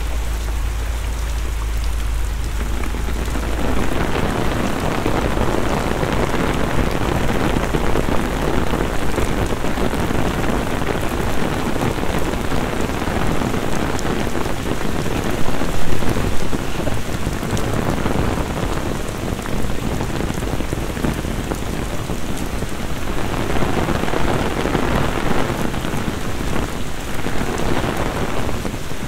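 Heavy rain falling on an open umbrella held overhead and splashing onto flooded paving. It comes in as a dense, steady hiss that grows louder about four seconds in, with a low rumble in the first few seconds and a brief louder surge about sixteen seconds in.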